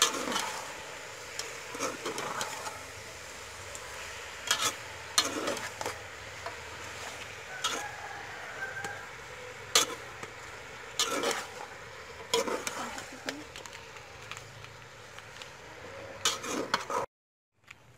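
Slotted metal spatula scraping and knocking against a metal pot while stir-frying chicken, onion and lemongrass, with a steady sizzle underneath. The scrapes come irregularly, about one every second or two, and the sound cuts off suddenly near the end.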